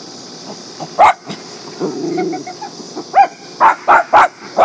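Dog barking at a door: one sharp bark about a second in, then a quick run of five barks near the end, over a steady high hiss.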